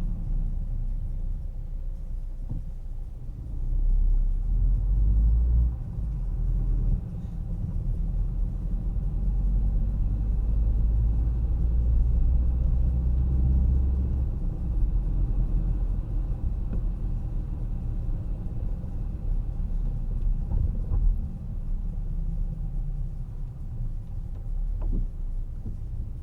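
A car driving through city streets: a steady low rumble of engine and tyres on the road. It swells louder at about four seconds and again through the middle.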